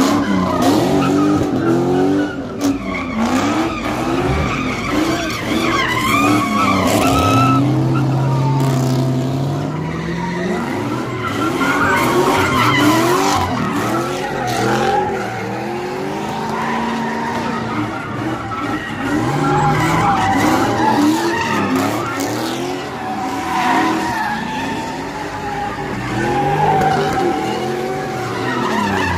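Car doing donuts: its engine revs up and down over and over, about once a second, while the spinning tires squeal and skid on the pavement.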